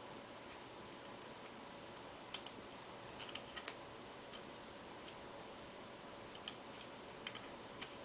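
Faint, scattered small clicks and ticks of metal parts being handled as a Lee Enfield No. 4 Mk 1 bolt is reassembled and its screw is put back in, over a steady low hiss. The clicks are irregular: one about two seconds in, a short cluster a second later, and a few more near the end.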